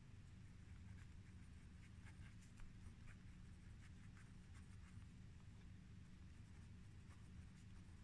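Faint pen scratching on paper in short, scattered strokes, mostly in the first half, over a low steady hum.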